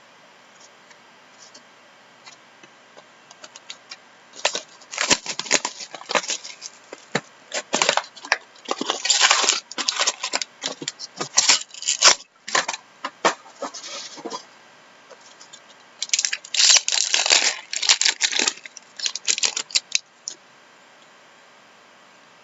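Hockey card packs being torn open and cards handled: irregular crinkling and tearing of pack wrappers with quick papery clicks. There are two busy spells, from about four to fourteen seconds in and from about sixteen to twenty seconds in.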